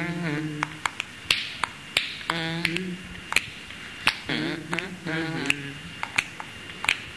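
Sharp snaps or clicks, about one a second and unevenly spaced, between three short held wordless vocal notes.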